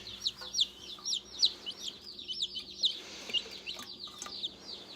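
A box of day-old meat chicks peeping: many high cheeps, each falling in pitch, overlapping at several a second.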